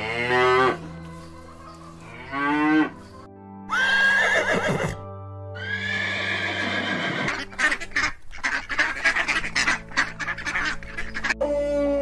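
Cows mooing, three separate calls in the first five seconds, then a horse neighing in a long, shaky whinny, over light background music.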